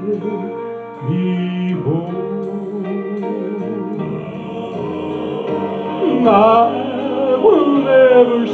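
A man singing a slow song into a handheld microphone, over instrumental accompaniment with held notes.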